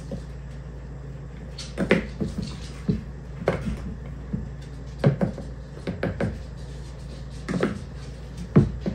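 A plastic measuring cup scooping flour from a plastic storage container, with irregular knocks and scrapes as the cup strikes the container and flour is levelled and tipped into a mixing bowl. A steady low hum runs underneath.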